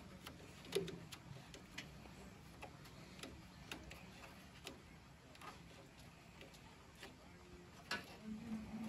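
Faint, irregular small clicks of fuses and their spring clips being handled and seated in a Fiat 480 tractor's fuse block.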